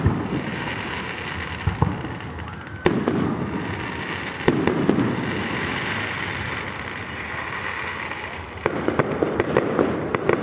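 Fireworks display: four sharp bangs of bursting shells spaced a second or two apart, with a steady hiss between them, then about 9 s in a rapid crackle of many small pops from crackling effects.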